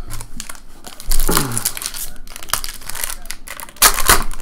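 Foil wrapper of a baseball card pack crinkling as it is handled and torn open, with two louder crackling rips, about a second in and near the end.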